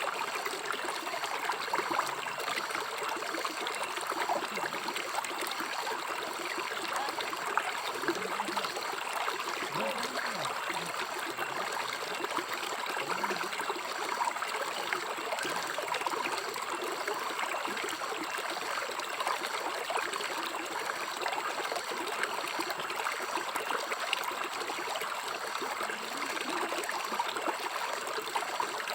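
River water flowing and babbling steadily over its bed, with a few faint low gurgles about a third of the way in.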